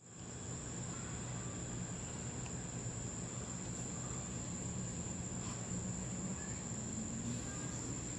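Night insects chirring in one steady, unbroken high-pitched tone, over a low steady hum.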